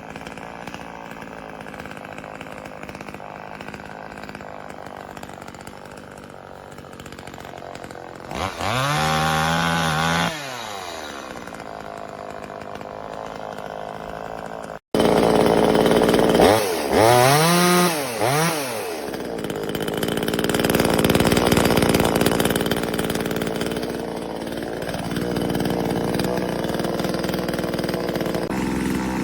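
Small two-stroke 25.4cc top-handle chainsaw engine running at idle, revved up briefly about a third of the way in and again with a couple of quick blips just past the middle. The sound cuts off abruptly at the middle and resumes straight away.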